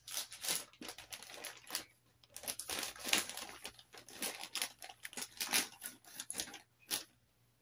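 Rustling and crinkling of makeup items being rummaged through and handled, a dense run of small irregular clicks and rustles.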